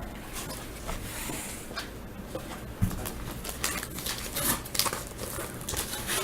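Trading cards and foil pack wrappers being handled on a table: light rustling, sliding and scattered taps, busier in the second half.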